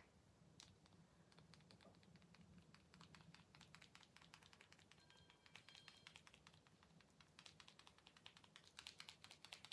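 Near silence, with many faint, quick light clicks, several a second.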